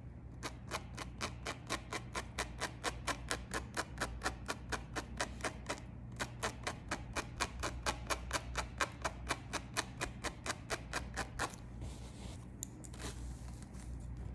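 Tweezers clicking rapidly and evenly, about five snaps a second, as hairs are plucked from the lace of a frontal wig. The clicking breaks off briefly about six seconds in and stops a few seconds before the end.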